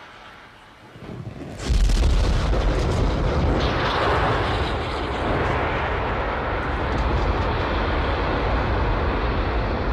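Space Shuttle launch: a rising hiss about a second in, then sudden loud, deep rocket-engine noise as the engines ignite at liftoff, holding steady after.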